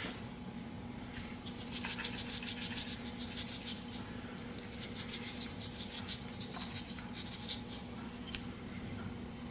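Plastic spice shaker shaken in quick rapid strokes, seasoning rasping out onto raw chicken pieces: one run about a second and a half in and another around five seconds in, with a few soft handling clicks. A steady low hum lies underneath.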